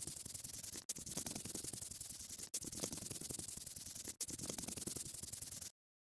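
Scratchy rubbing sound effect of coloring on paper, in stretches of about a second and a half with brief breaks between them, cutting off suddenly near the end.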